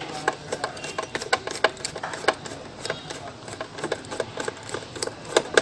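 A screwdriver backing out a small screw from the plastic housing of an LED emergency light: a run of irregular small clicks and creaks.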